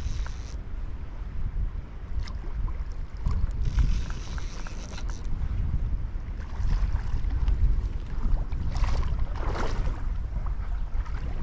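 Wind buffeting the microphone in a steady low rumble over a shallow flowing river, with a few brief bursts of hiss and scattered light clicks.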